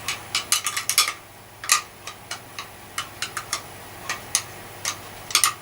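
Irregular sharp clicks and taps of small hard parts being handled, some in quick pairs and clusters, about twenty in all.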